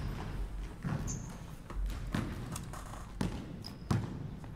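Basketball bouncing on a hardwood gym floor: a handful of separate, unevenly spaced thuds.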